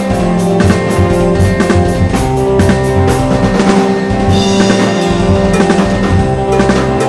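Drum kit played along to a backing track of original music: steady kick and snare strikes over sustained bass and melodic tones, with the strikes giving way to a brief cymbal wash about four seconds in.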